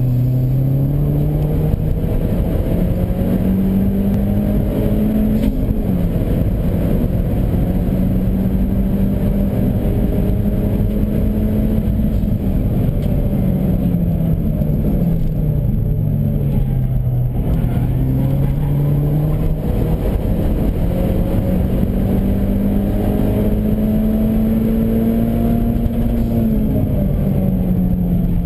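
Car engine driven hard on a hot lap: its note climbs in the first few seconds, holds high, drops away through the middle, then climbs and holds again before dipping near the end. Steady road and tyre noise runs underneath.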